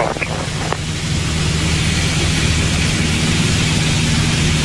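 Single-engine Piper light aircraft in cruise: its piston engine drones steadily with a low hum under a constant loud rush of air and engine noise, heard inside the cabin.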